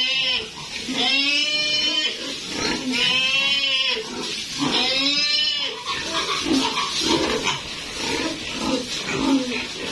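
Pig squealing: four long, high-pitched squeals about a second apart, each rising and falling in pitch. Over the last four seconds these give way to a run of short, lower grunts.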